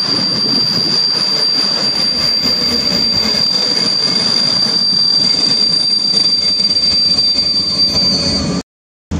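Passenger train hauled by an EU07 electric locomotive rolling slowly alongside the platform, its wheels rumbling under a steady high-pitched squeal. The sound cuts off suddenly near the end.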